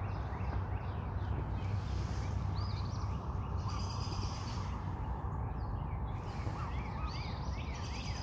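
Songbirds chirping and whistling, many short repeated notes, over a steady low rumble.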